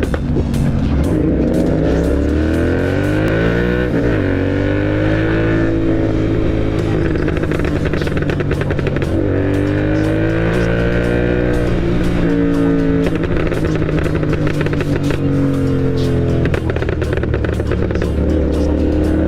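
Royal Enfield GT 650 parallel-twin with a Moto Torque exhaust and Code6 tune, accelerating hard through the gears. The engine note climbs and falls back at each shift, and there are quick bursts of exhaust crackles around the shifts.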